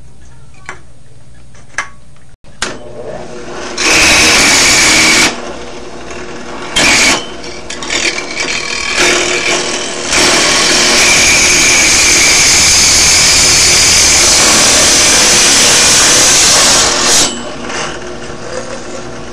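Drill press with a hole saw cutting through the end of an aluminium soda can: a loud, even metal-cutting screech in three spells, a short one about four seconds in, a brief one near seven seconds, and a long steady one of about seven seconds from the middle on, with small knocks between.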